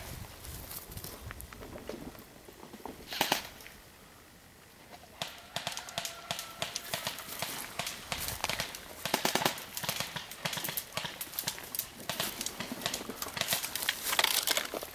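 Footsteps crunching through dry leaf litter and snapping twigs, an irregular crackle that gets busier from about five seconds in. A brief sharp rattle comes about three seconds in.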